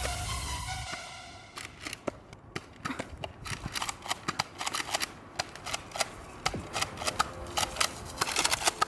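Background music fades out about a second in, followed by a run of irregular sharp clicks and snaps that grow denser near the end.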